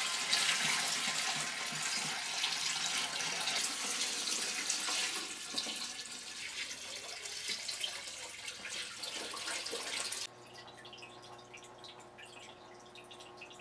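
Aquarium filter running, water pouring and splashing into the tank. About ten seconds in the sound drops suddenly to a quieter trickle over a steady low hum.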